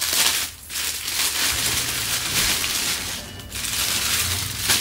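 Clear plastic poly bags crinkling and rustling as folded clothing is handled and pulled out of them, a steady run of noise broken by two short pauses.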